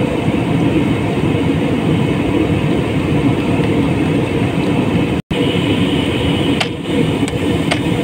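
Steady cabin noise of an Airbus A320-family jet airliner in flight: engine and airflow drone heard from inside the cabin. The sound breaks off for an instant about five seconds in, then resumes with a few faint clicks.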